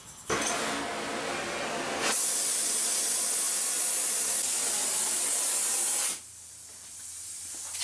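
A welder heating a 316 stainless steel rod to a glow for bending: a rough hiss, then from about two seconds in a louder, higher steady hiss that cuts off suddenly about four seconds later.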